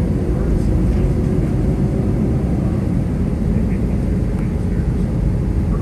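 Airbus A320 cabin noise while taxiing: a steady low rumble from the jet engines at low taxi power and the rolling aircraft, heard from a window seat inside the cabin.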